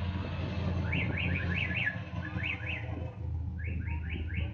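Low, steady running of passing parade cars' engines, with three quick runs of short, rising, high chirps about a second apart.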